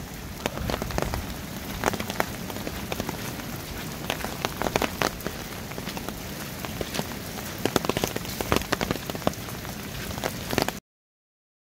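Steady rain falling, with many separate drops striking close by as sharp ticks over the hiss. It cuts off suddenly near the end.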